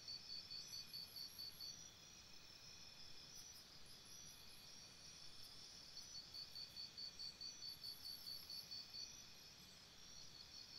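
Faint night ambience of crickets chirping: a high, even pulsing, about six pulses a second, that drops out for a few seconds in the middle and again near the end, with a higher-pitched insect trilling in short runs.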